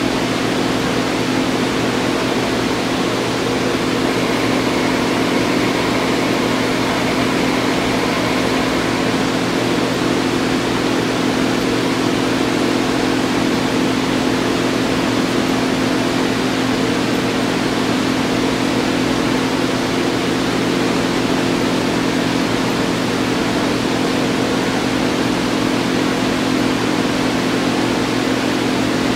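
Hardinge HLV-H toolroom lathe running: a loud, steady machine hum made of several even tones, unchanging throughout.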